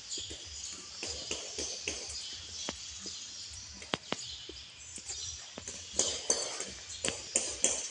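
Animal calls outdoors: a dense chorus of high chirps with many sharp clicks scattered through it, busier and louder over the last couple of seconds.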